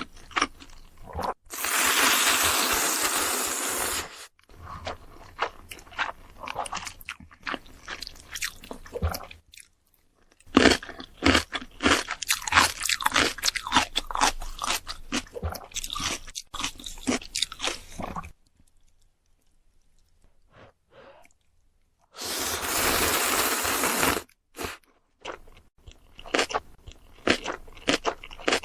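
A person eating ramen close to the microphone: two long slurps of noodles, each lasting two to three seconds, one near the start and one about two-thirds of the way through. Between them come long runs of wet chewing and mouth clicks.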